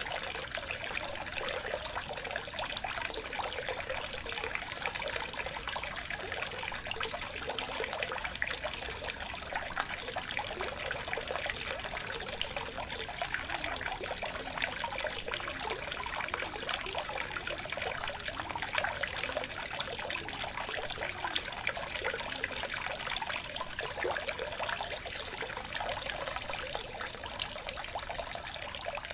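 Aquarium water trickling steadily, a continuous dense fizz of small splashes.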